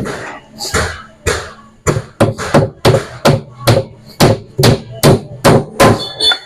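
Hammer driving nails into plywood, about fifteen sharp blows at a steady two to three a second.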